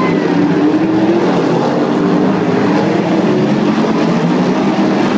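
Several figure-eight race car engines running at once on the track, a loud, steady, overlapping drone. About half a second in, one car's engine note climbs as it accelerates.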